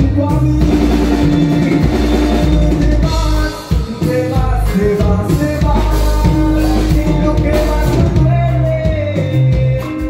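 Live norteño band music: a drum kit keeping a steady beat over bass, with held melody notes and singing.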